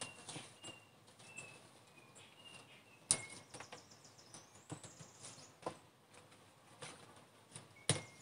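Faint outdoor ambience with short bird chirps, broken by a few sharp clicks as leaves are trimmed off a potted peperomia, the loudest about three seconds in and again near the end.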